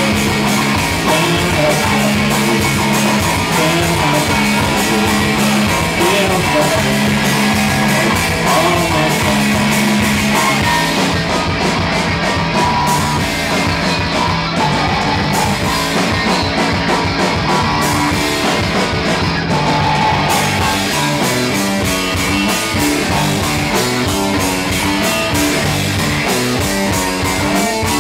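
A rock band playing live: electric guitar and drums, loud and continuous, with steady rapid drum hits over a moving low line.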